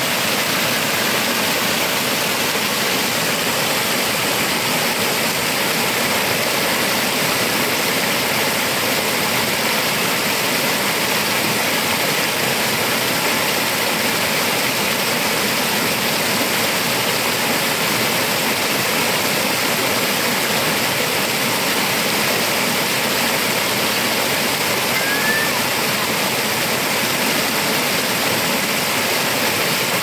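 Stream water rushing and splashing over boulders in a small cascade, a steady, unbroken sound. One brief high chirp comes about 25 seconds in.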